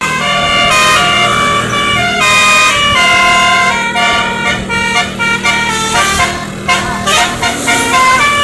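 Tour bus's basuri telolet horn playing a tune: a run of horn notes stepping from pitch to pitch every fraction of a second, over a steady low hum.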